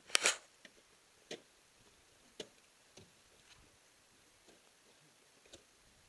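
A few sharp, irregularly spaced knocks and clicks, the loudest a short crack with a brief scraping hiss about a quarter second in: ice axes and crampons striking the ice of a frozen waterfall.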